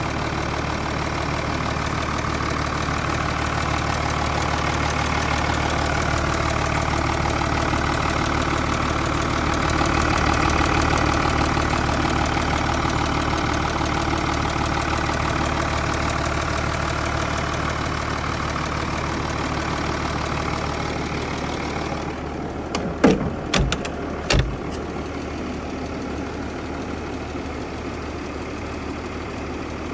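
Mercedes G-Class OM656 inline-six diesel engine running steadily with a knock, which the owner records as a fault noise. A few sharp thumps come close together about 23 to 24 seconds in.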